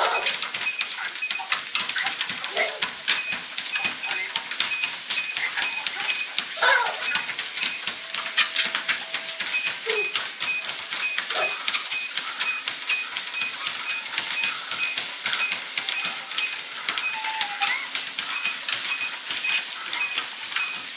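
Treadmill running with a dense, rapid clatter of feet and dog paws striking the belt, with a few brief vocal sounds scattered through.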